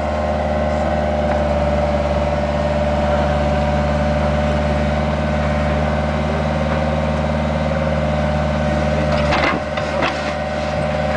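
Bobcat 430 ZHS mini excavator's diesel engine running steadily, with a steady whine over the engine drone. About nine seconds in there is a short cluster of knocks.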